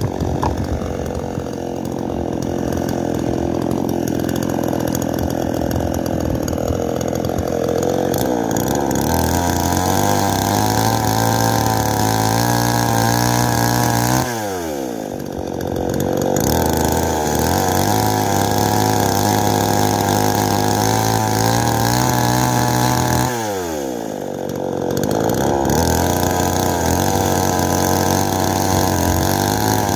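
Chainsaw cutting a log into firewood lengths, running at high revs through each cut. Twice the engine drops back toward idle between cuts and then revs up again.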